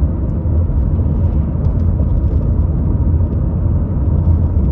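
Steady low rumble of a car driving along, with road and engine noise heard from inside the cabin.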